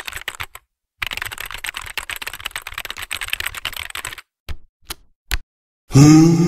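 Typing sound effect of rapid key clicks, in two long runs with a short gap between, then a few single clicks. Soft music begins near the end.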